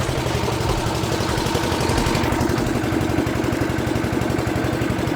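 A motor or small engine running steadily with a rapid, even throb.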